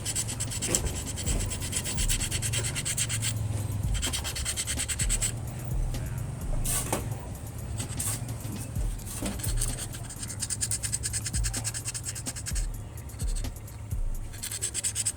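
A brush scrubbing rust off car AC compressor parts in fast, scratchy strokes. It comes in stretches of a few seconds with short pauses between them.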